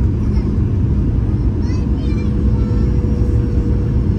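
Steady cabin noise of a Boeing 737 airliner descending on approach: a loud rush of engines and airflow with a low steady hum, and a second, higher hum that comes in about two seconds in.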